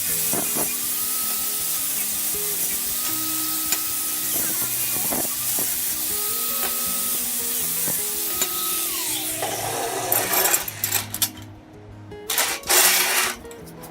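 A steady hiss over background music, cutting off about nine and a half seconds in, followed by a few irregular clinks and knocks.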